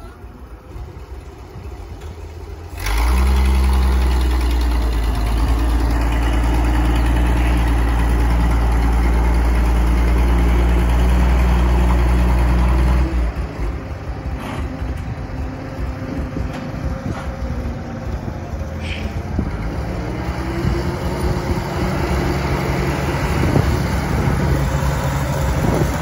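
1945 Hough front-end loader's engine running at low speed, then about three seconds in it revs up and runs hard and steady for about ten seconds before dropping back to a lower, uneven running speed as the loader drives across the field.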